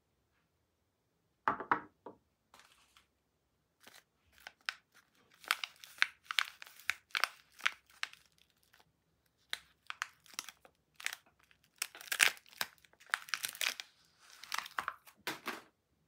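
Paper wrapper of a bar of soap being torn open and peeled off by hand, in a long run of crisp rips and crinkles. It is preceded by a soft knock, as a bar of soap is set down about a second and a half in.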